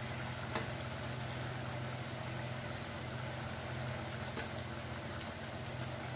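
Jackfruit kofta curry cooking in a pan on a gas burner: a steady low sizzling hiss with a constant hum underneath. There are a couple of faint clicks as the koftas are set into the gravy.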